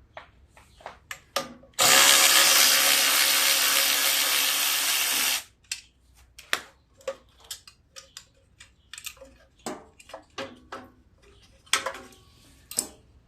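A power driver runs steadily for about three and a half seconds, backing out an 8 mm bolt on the tiller's metal pan. Scattered clicks and knocks of the socket, bolt and metal parts being handled follow.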